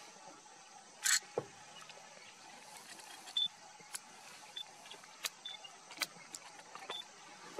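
A male gaur cropping grass: short, sharp tearing snips, the loudest about a second in and the rest a second or so apart, over a faint steady hiss. Short high chirps come in here and there.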